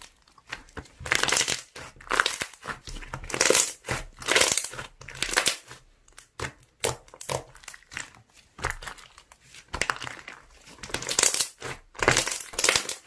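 Slime being squeezed, pressed and pulled by hand, giving irregular squishy, crackling sounds about once or twice a second.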